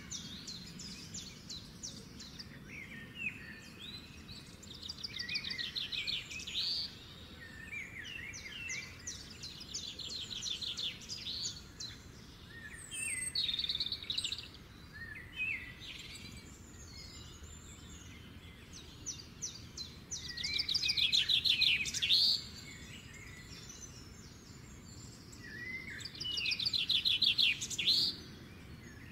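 A songbird singing in bursts of fast, high trills and chirps, each phrase lasting one to two seconds, over a faint steady hiss.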